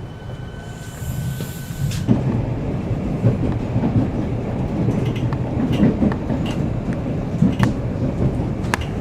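A steady high whine for about two seconds, then a suburban electric train's rumble starts suddenly and carries on, with scattered sharp clicks of wheels over the rails.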